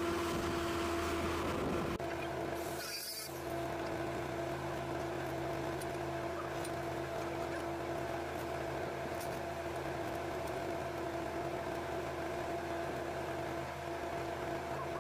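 Steady drone of running machinery with a constant mid-pitched hum, and a short hiss about three seconds in.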